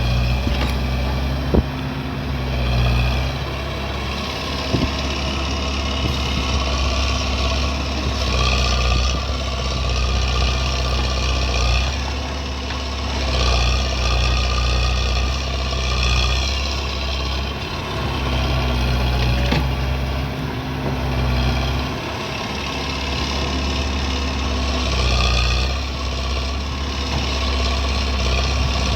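Excavator's diesel engine running steadily, swelling and easing every few seconds as it works, with two brief sharp knocks in the first five seconds.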